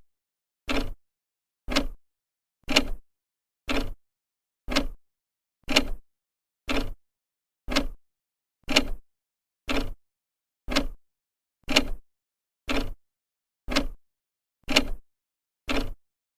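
Old clock's second hand ticking steadily, one sharp tick each second with silence between.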